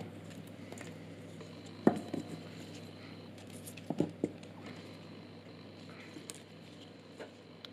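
Handling noise from a disassembled plastic solderless breadboard and its metal contact strips: a few light clicks and knocks, the loudest about two seconds in and a quick pair about four seconds in.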